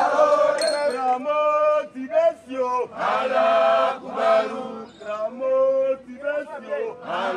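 A group of voices singing an exercise chant together, in short phrases of held notes with brief pauses between them.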